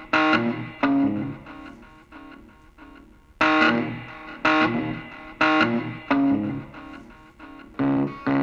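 Music: electric guitar chords struck about once a second, each left to ring and fade, with a short lull in the middle.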